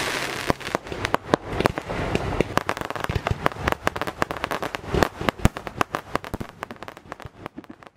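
Firecrackers going off in a rapid run of sharp cracks, dense at first, then thinning out and stopping near the end.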